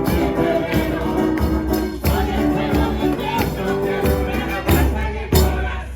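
Music with a beat of regular drum strikes over held pitched notes.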